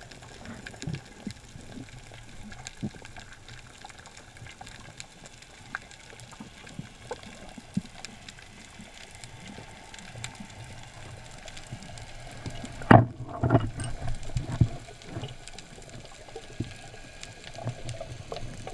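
Underwater ambience heard through a camera housing: a steady low hiss scattered with faint clicks and crackles. About two-thirds of the way through come a few loud knocks in quick succession.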